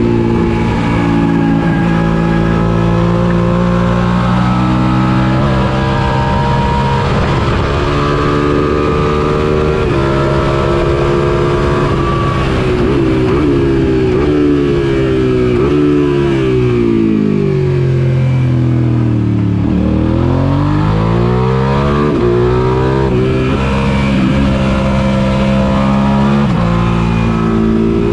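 Suzuki SV650 race bike's 645 cc V-twin engine heard onboard at racing speed: revs climb and drop back at each upshift, then fall through several downshifts under braking to a low point about twenty seconds in, and climb again through the upshifts.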